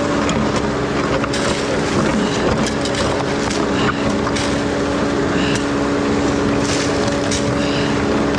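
SkyTrak telehandler's diesel engine running steadily under hydraulic load with a constant hum, as it drives an auger into rocky ground, with scattered knocks and clicks.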